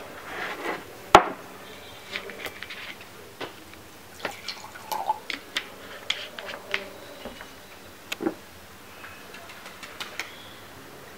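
Plastic water bottle handled on a wooden desk: scattered crackles and clicks of the thin plastic and the cap, with a sharp knock about a second in, and water poured into a glass.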